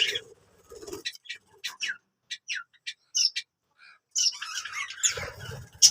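Pet budgerigars chirping and squawking in short, separate calls, most of them falling in pitch, several to a second. Near the end the sound turns into a denser, scratchy run of noise.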